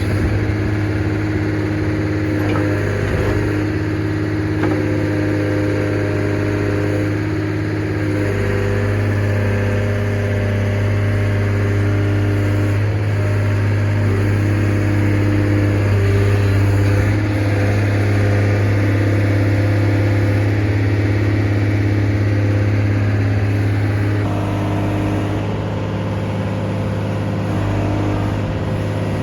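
Case 125B excavator's diesel engine running steadily under load while digging, with the hydraulic whine changing pitch every few seconds as the boom and bucket are worked.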